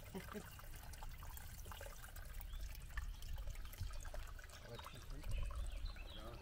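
Iron-rich mineral spring water trickling from a trough into a stone basin, with small drips, over a low rumble.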